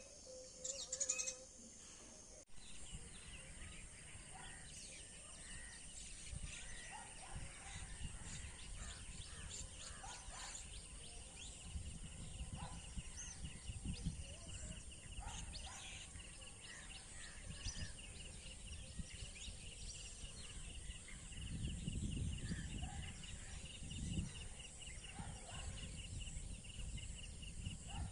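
Morning outdoor ambience: scattered bird calls over a steady, rapidly pulsing insect trill and a high steady insect hum. A low rumble grows louder about two-thirds of the way in.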